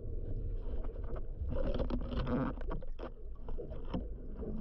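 Underwater sound heard through a camera housing: a steady, muffled low rumble of swell and surge moving the water, with scattered clicks and knocks, busiest between about 1.5 and 3 seconds in.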